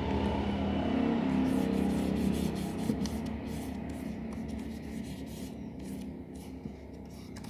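A palm rubbing over a sheet of oiled 1000-grit sandpaper, spreading the oil across it: a soft, steady rubbing that slowly fades.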